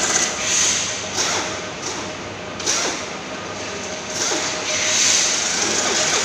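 Factory workshop noise: a steady machine hum under a hiss that swells and fades several times, with a few sharp metal knocks from aluminium scaffolding frames being assembled on a steel bench.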